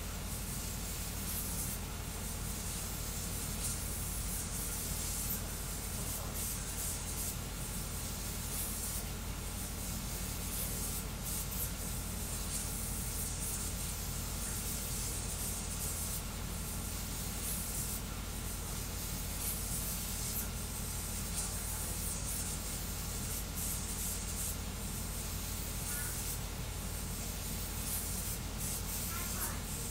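Voron 3D printer printing at high speed, a steady whirring hiss from its fans and motion system.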